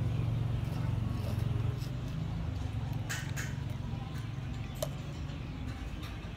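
A child sipping from a small plastic bottle of milk drink, with a short rustle about three seconds in and a single click near five seconds, over a low steady hum that eases after about two seconds.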